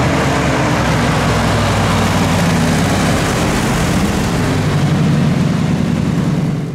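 A 1970 Chevrolet Chevelle SS's 396 cubic-inch V8 running as the car drives by on a wet road: a deep, steady engine note with tyre hiss that swells in the middle.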